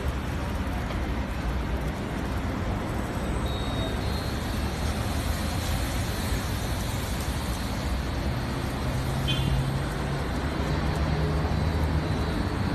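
Steady low rumble with an even noise over it, like vehicle road noise.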